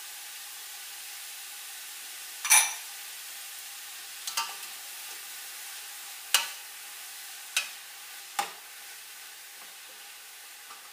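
Shredded cabbage and carrot sizzling steadily in a metal pot, with a spoon stirring through the vegetables and knocking sharply against the pot about five times.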